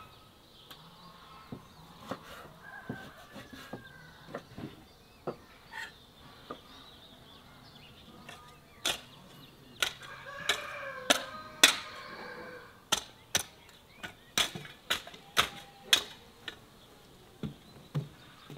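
Chickens clucking and a rooster crowing, under an irregular run of sharp knocks, roughly two a second, from about nine seconds in until near the end.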